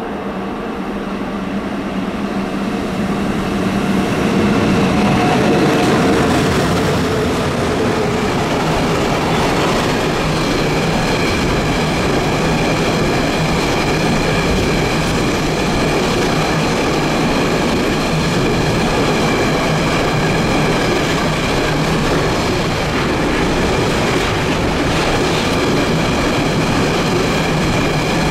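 Freight train passing through a station at speed. It swells in over the first few seconds as the locomotive goes by, with its tones sliding down in pitch. Then a long string of freight wagons rolls past with steady wheel-on-rail noise, clicking over rail joints and a faint high wheel squeal.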